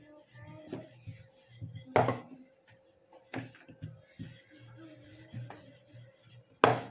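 Sharp knocks and clatter of kitchen utensils against a board and pan during chapati making. The three louder knocks come about two seconds in, a little after three seconds and near the end, the last the loudest, with softer knocks and rubbing between.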